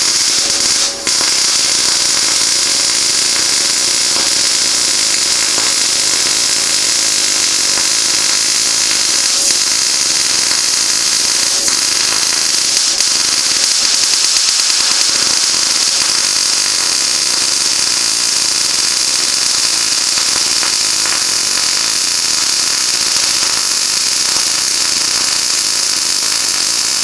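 Wire-feed welder's arc running a continuous bead on 22-gauge sheet steel, a steady crackling hiss with one short break about a second in. The welder judges the bead was run too cold.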